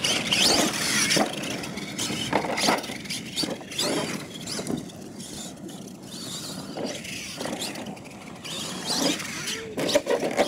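Radio-controlled monster truck driving on dirt: its motor and drivetrain whine up and down in pitch with the throttle, over the crunch and scrabble of the tyres, with a few sharp knocks.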